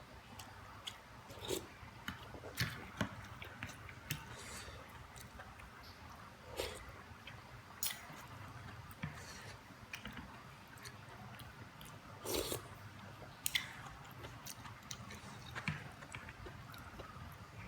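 Close-miked eating of soupy instant noodles and rice: chewing and biting, with irregular wet clicks and smacks of the mouth.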